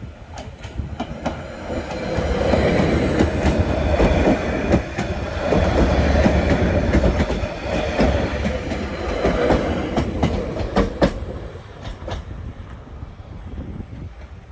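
Greater Anglia Class 755 train passing close by over a level crossing, its wheels clacking over the rail joints. It swells about two seconds in, stays loud until about eleven seconds, then fades away.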